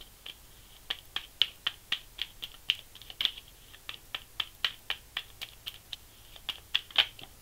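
Deck of tarot or oracle cards being shuffled by hand: a steady run of crisp, irregular card clicks, about three to five a second.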